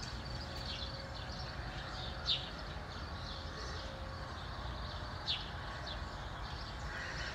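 A few short, high bird chirps, the clearest about two seconds in and again about five seconds in, over a steady low rumble.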